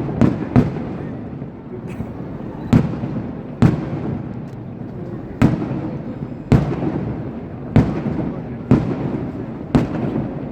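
Fireworks going off in a steady sequence of loud bangs, about one a second. Each bang is followed by a rolling echo.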